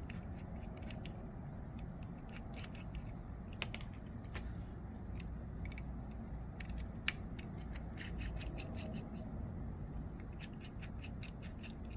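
T8 Torx driver backing out the body screws of a folding knife, with scattered light metallic clicks and scratches as the driver turns and small screws and parts are handled, and one sharper click about seven seconds in.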